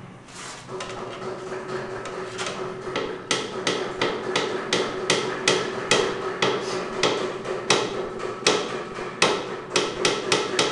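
A paint roller being worked in a paint can, knocking against the can about two to three times a second, over a steady tone.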